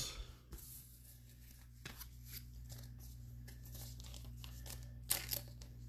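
Soft rustling and crinkling of a foil trading-card pack and cards being handled, with a brief louder crinkle of the wrapper tearing about five seconds in. A faint steady hum runs underneath.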